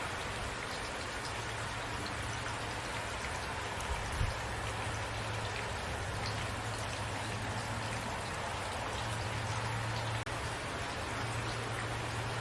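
Steady rain falling, with scattered individual drops ticking, over a steady low hum.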